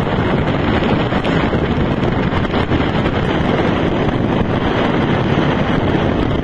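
Strong wind buffeting the microphone on a racing yacht in stormy weather: a loud, steady rush of noise that drowns out everything else.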